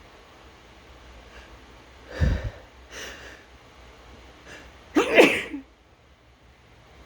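A person sneezing. A sharp burst about two seconds in and a softer breath after it lead up to the loudest event about five seconds in: a full, pitched sneeze lasting about half a second.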